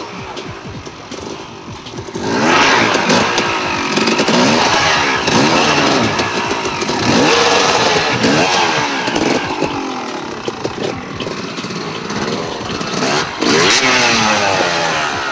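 Enduro dirt bike engines revving in short rising and falling bursts, the throttle blipped again and again as the bikes are worked over a section of stacked tyres. The revving gets louder about two seconds in.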